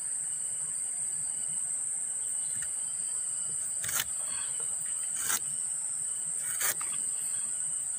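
Steady high-pitched insect drone, with three short sharp strokes about a second and a half apart in the second half: a knife slicing a thin layer off the sugar palm's flower stalk to renew the tapping cut so the sap flows again.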